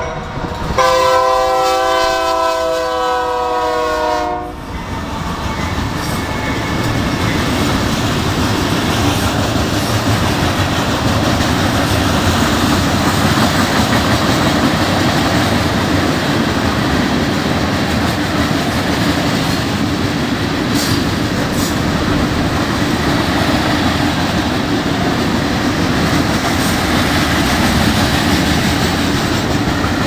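Freight locomotive horn blowing, with a short break and then a long blast whose pitch drops as the locomotives pass, stopping about four and a half seconds in. After that, the steady rumble and clatter of a long string of flatcars and tank cars rolling past on the rails.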